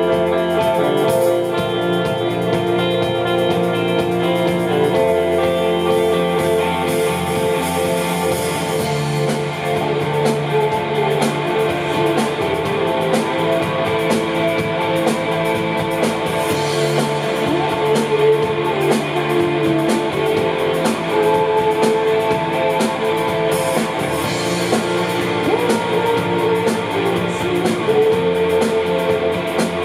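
Rock band playing live, electric guitars and drum kit together: layered, sustained guitar notes over steady drum hits.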